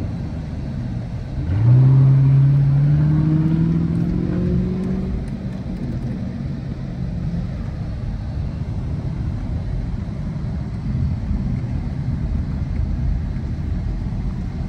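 Car engine heard from inside the cabin, pulling hard under acceleration: about a second and a half in its note jumps up and keeps rising for a few seconds, then it eases back into a steady low engine and road rumble.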